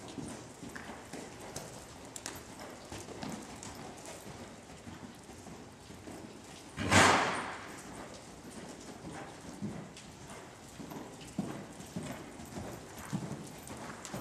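Hoofbeats of a ridden Appendix Quarter Horse on the soft dirt footing of an indoor arena, dull uneven thuds. About halfway through, a brief loud rushing noise stands out over them.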